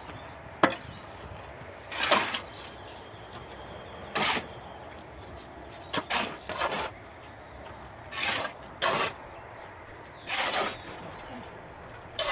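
Steel shovels scooping and scraping through a pile of sand-and-gravel mix on a concrete floor, turning it over by hand. Short gritty scrapes come every one to two seconds, with a sharp clink early on.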